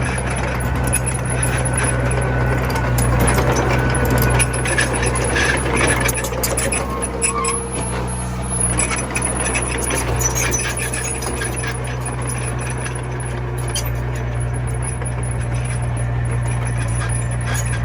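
Komatsu mini bulldozer's diesel engine running steadily under work, with scattered clicks and knocks over it.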